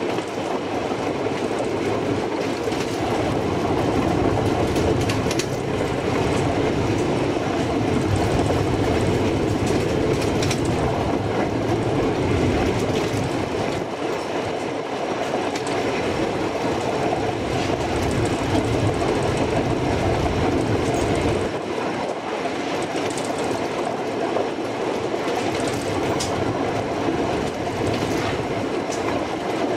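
Narrow-gauge (785 mm) train running steadily along the track: a continuous rumble of wheels on rails, with a few faint clicks from the rail joints.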